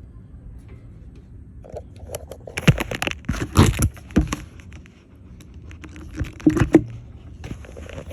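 Metal clinking and rattling from a wrist-training handle and its attachment hardware being worked through exercise reps, in two clusters of sharp clicks, the first longer and about a second and a half before the second.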